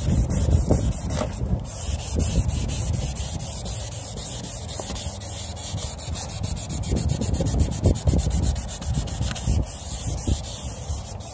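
Wet sandpaper rubbed by hand back and forth over a plastic headlight lens: a continuous run of quick sanding strokes.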